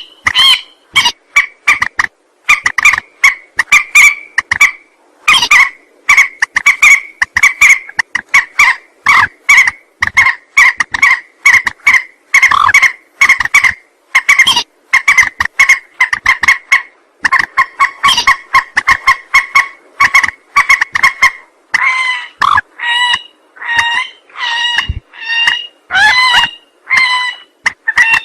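Lure recording of a mandar, a rail or swamphen, calling loudly: rapid runs of short notes repeated almost without pause. In the last several seconds the notes grow longer and more spaced, and they bend in pitch.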